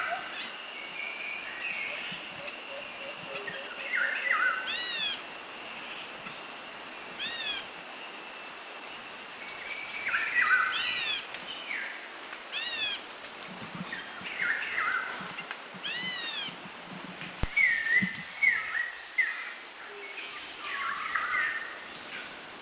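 Several birds calling. One repeats a quick set of three high arched chirps every two to three seconds, while others give short whistled notes, over a thin steady high tone in the first half.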